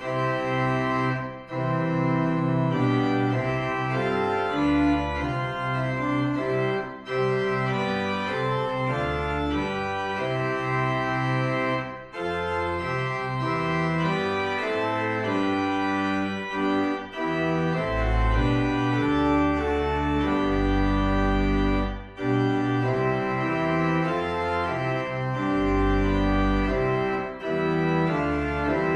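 Organ playing the opening hymn tune in sustained chords, with short breaks between phrases every few seconds. Deep pedal bass notes join about two-thirds of the way through.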